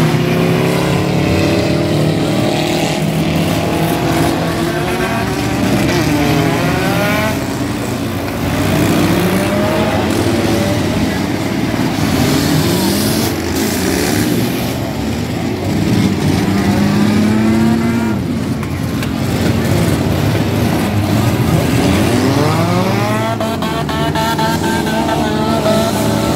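Several demolition derby cars' engines revving at once, their pitch rising and falling again and again as the cars accelerate and back off while ramming each other.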